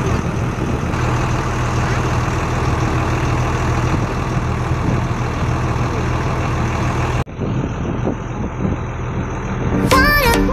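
Wooden boat's engine running steadily with a rushing noise over it. The sound cuts off abruptly about seven seconds in, giving way to a quieter hum, and music starts near the end.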